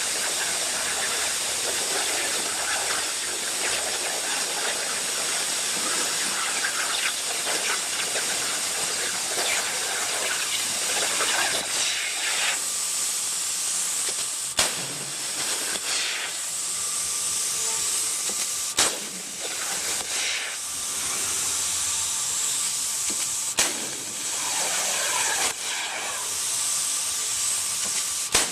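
Plasma torch of a CNC plasma cutting machine cutting metal: a steady hiss, with a few sharp cracks in the second half and a faint steady tone joining about halfway through.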